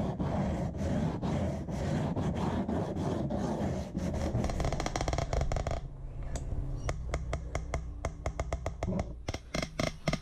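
A sheet of 180-grit sandpaper rubbed by hand along a plywood edge, a fast run of scraping strokes for about six seconds. Then a caulking gun is worked as it lays a bead of construction adhesive, giving a scattered series of sharp clicks.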